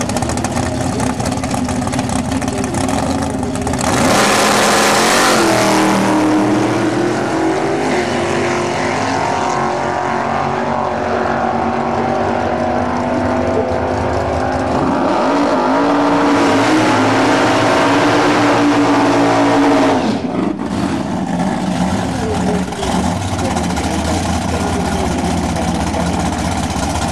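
Racing engines running hard at high revs, with the pitch rising and falling. It swells sharply about four seconds in and drops off suddenly about twenty seconds in.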